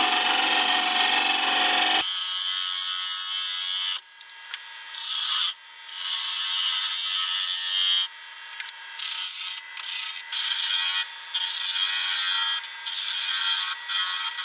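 Wood lathe turning tool cutting a spinning beech blank: a continuous shaving hiss that changes abruptly about two seconds in, then from about four seconds in a run of shorter cuts that start and stop.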